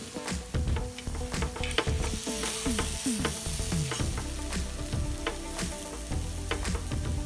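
Appam batter sizzling in oil in a nonstick appam pan, with frequent short clicks and scrapes as a metal fork turns the dumplings over in their cups.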